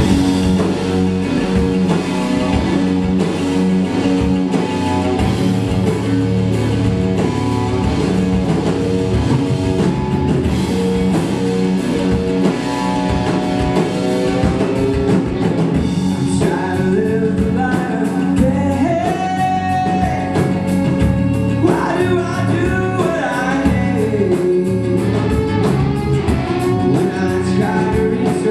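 Rock band playing live, with drums, electric guitars and bass at a steady loud level, and a lead vocal or melodic line coming through over the band about halfway in.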